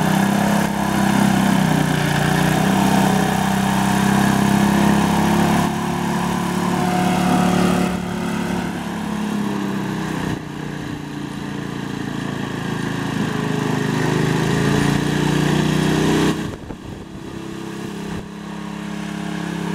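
Sears 600 garden tractor's engine running under load as the tractor pushes dirt with its front blade, its pitch wavering and rising. About 16 seconds in it suddenly drops quieter as the tractor moves away.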